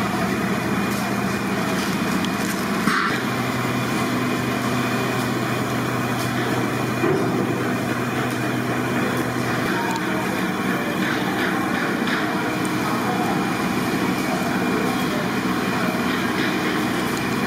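Steady loud drone of a large cooking kitchen, with a constant low hum under it, and two brief knocks, about three and seven seconds in.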